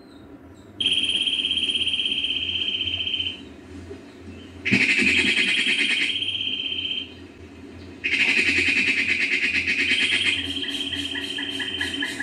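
Shrill, high-pitched insect buzzing in three bouts of a few seconds each, every bout switching on and off abruptly. Near the end a second, lower call joins as an even series of quick pulses.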